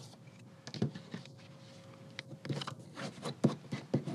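Paper handling as a book page is folded by hand at a marked point: irregular soft rustles, scrapes and small clicks of the page being bent and creased, busier in the second half.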